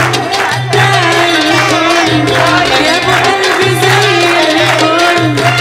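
Live band playing an upbeat Egyptian pop song with a steady, pulsing beat and hand percussion. A woman sings along into a microphone while others clap in time.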